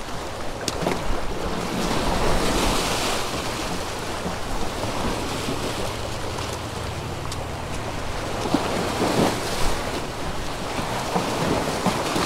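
Surf washing against jetty rocks, with wind on the microphone and a few faint clicks.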